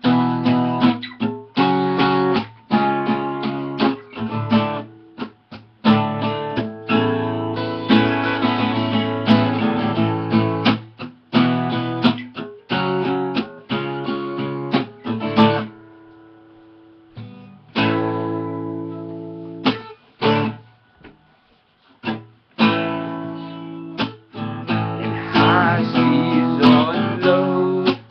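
Acoustic guitar strummed in a steady rhythm as an instrumental intro. About halfway through, the strumming stops and a single chord rings out for a second or two. Then the strumming starts again.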